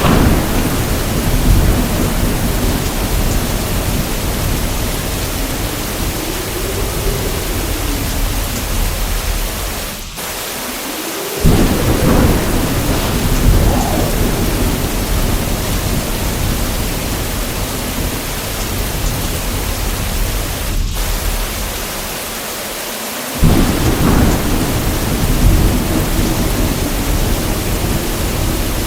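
Thunderstorm: heavy rain pours steadily while thunder cracks and rolls three times, right at the start, about 11 seconds in and about 23 seconds in, each crack rumbling on for several seconds.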